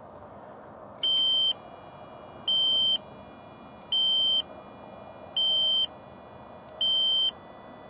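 Electronic warning beep sounding five times, each beep about half a second long and repeating about every second and a half, over a faint steady hum.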